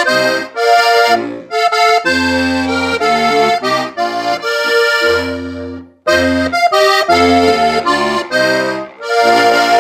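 Munda diatonic button accordion playing a Slovenian folk tune, melody chords over a pulsing bass. A phrase dies away about six seconds in, then the playing picks up again and closes on a held chord.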